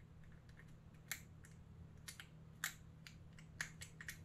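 Hands handling a soft-plastic swimbait and its jig head: faint, irregular light clicks and ticks, a few of them sharper.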